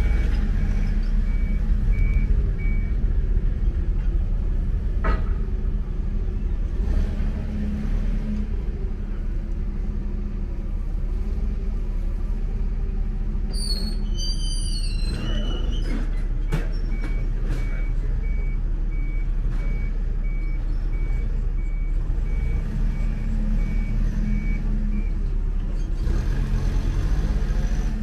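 Steady low engine rumble, with a vehicle's reversing beeper sounding a regular beep, about one and a half a second, over the first few seconds and again through the second half. A brief high wavering squeal comes about halfway through.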